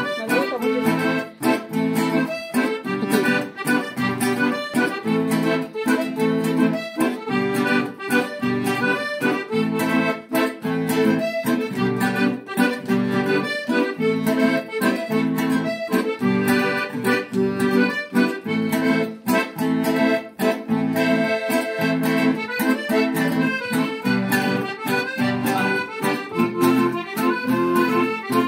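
Accordion and acoustic guitar playing an instrumental cumbia together, the accordion carrying the melody over a steady, regular guitar rhythm.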